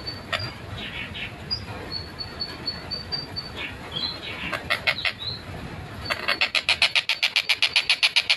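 Collared kingfisher (tengkek buto) calling: scattered harsh notes at first, then, about six seconds in, a loud, rapid run of harsh notes at about six a second. A faint thin high whistle repeats in short dashes during the first half.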